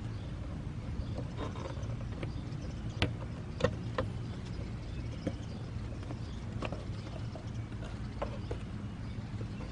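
Scattered light clicks and knocks of hands handling a motorcycle's side cover and trim pieces, over a low steady hum.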